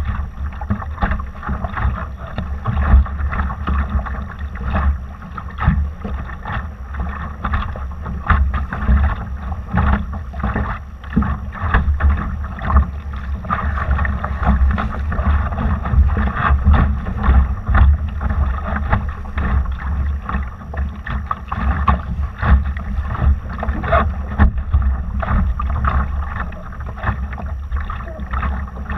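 Water rushing and splashing along a Laser dinghy's hull under sail, with constant wind buffeting on the microphone.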